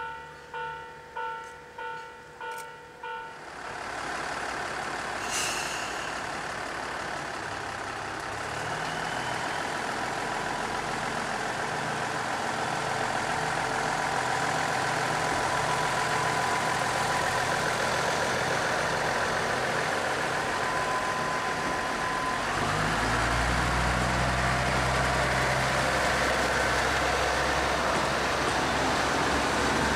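A bell dings about twice a second and stops after about three seconds. A diesel railcar's engine then runs with a steady noise, and its low drone opens up and gets louder about 22 seconds in.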